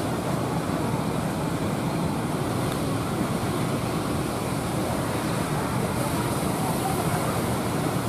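Steady rush of rough surf breaking.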